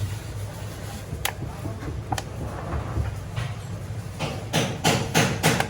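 Sharp clicks and clatters of parts and tools being handled in car maintenance work: single clicks about a second and two seconds in, then a quick run of clicks near the end, over a steady low hum.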